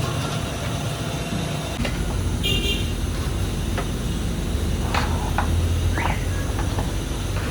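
Street traffic: a steady low engine rumble with a short horn toot about two and a half seconds in, and a few short sharp clatters later on.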